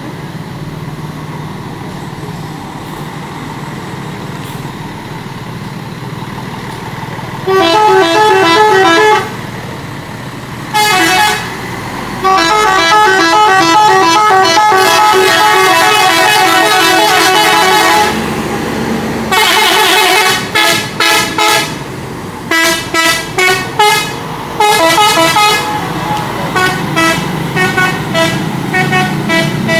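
A bus's telolet horn, a set of air trumpets sounding rapid alternating notes over the steady low rumble of the bus. It starts about seven seconds in with a short burst, plays a long warbling run of several seconds, then finishes with many quick short blasts.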